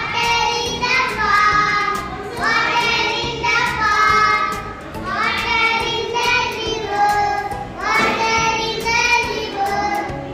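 Young children singing a song together in short repeated phrases, each starting on a rising note.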